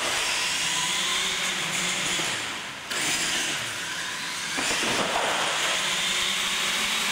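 Electric R/C monster trucks racing on a concrete floor: a steady whirring and hissing of motors, gears and tyres that starts abruptly and dips briefly about three seconds in.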